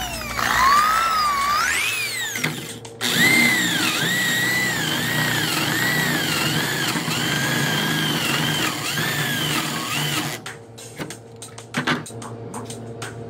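Electric drill boring through a doweling jig's guide bushing into a wood block, its motor whine rising and then dipping in pitch again and again, about once a second, as the bit bites and eases. It stops briefly a couple of seconds in, starts again, and cuts out about ten seconds in, leaving background music.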